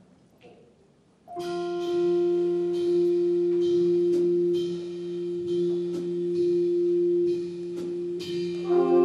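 A big band opening a ballad: a long held note with a second note an octave below it starts about a second in. Several more instruments join with a chord near the end.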